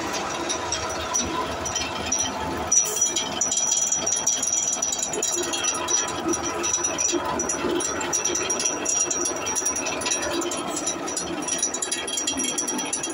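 Electric grass chopper (chaff cutter), driven by a 4.5 kW single-phase 220 V motor, running and chopping leafy fodder: a steady mechanical din with a constant clatter, and a high steady whine coming in about three seconds in.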